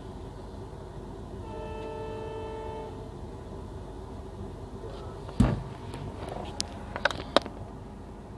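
Train running with a steady low rumble; a train horn sounds once, held for about a second and a half, near the start. A loud knock comes about five seconds in, followed by a few sharp clicks.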